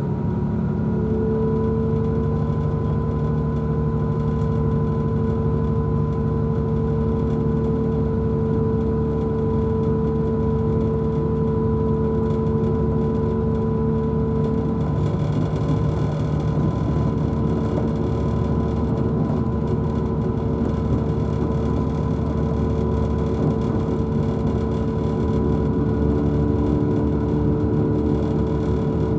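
Interior sound of a Class 180 diesel multiple unit pulling away, its underfloor Cummins diesel engines running under power with a steady whine of several held tones over a low rumble. From about halfway in, wheel and rail noise grows as the train gathers speed.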